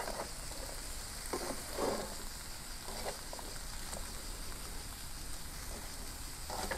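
Zucchini, red pepper and leek sizzling in a pan with no oil yet on a gas grill, a steady soft hiss, with a few short scrapes and clinks of a utensil stirring them.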